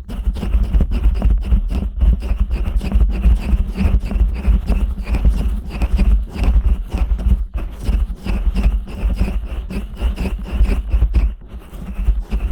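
Fingers and hands rubbing, kneading and scratching the silicone ears of a 3Dio binaural microphone. The pressure on the ears gives deep muffled thumps under a continuous rapid rustle, with a short quieter pause about eleven seconds in.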